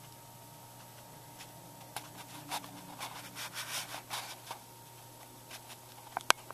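Handling noise from a handheld camcorder: hands rubbing and shifting on the camera body, a run of scratchy rubs about two seconds in, then one sharp click near the end. A faint steady hum lies underneath.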